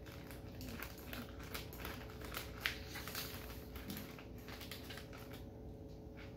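Plastic snack wrapper crinkling and rustling as it is handled and opened, with scattered small clicks and one sharp click about two and a half seconds in.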